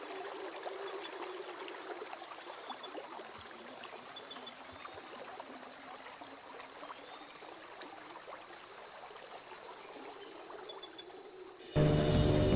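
River ambience: steady water lapping and trickling, with an insect calling in short, regular chirps about three every two seconds. Near the end it cuts suddenly to loud music and a running motor.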